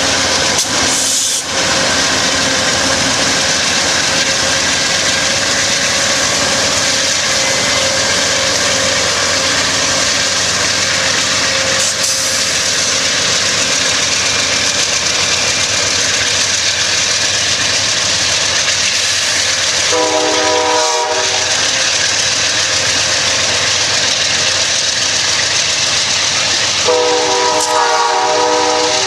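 Two Amtrak GE P42DC Genesis diesel locomotives passing close by at speed, followed by double-deck Superliner passenger cars rolling past on steel wheels. The train's horn sounds twice: a short blast about two-thirds of the way in and a longer one near the end.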